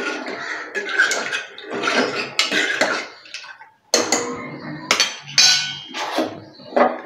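Steel ladle stirring a watery rice and coconut-milk mixture in a pressure cooker, scraping and clinking against the pot. From about four seconds in come a few sharp metal clanks, one ringing briefly.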